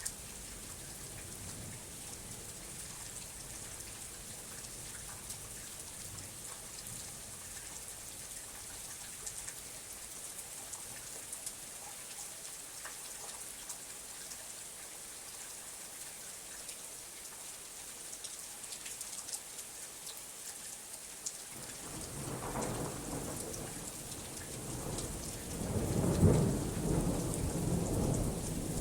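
Steady rain falling with a constant hiss. About three quarters of the way through, a low thunder rumble builds, peaks in a loud crack a few seconds later and keeps rolling.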